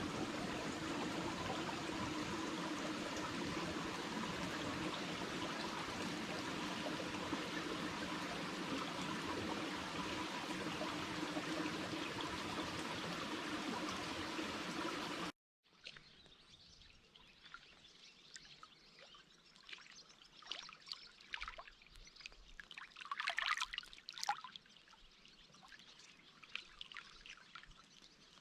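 Steady rush of flowing water that cuts off abruptly about halfway through, followed by much quieter outdoor ambience with scattered brief sounds, the loudest cluster near the end.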